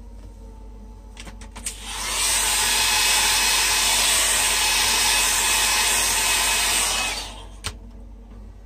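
Conair hair dryer blowing with a steady rush for about five seconds, switched on about two seconds in and off near the end, with a few sharp clicks just before it starts and one just after it stops.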